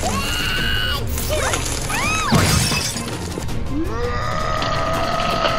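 Cartoon voice effects for an animated character being squashed: short whines that rise and fall in pitch, then a long held squeal starting about four seconds in, over background music. A brief crackle comes partway through.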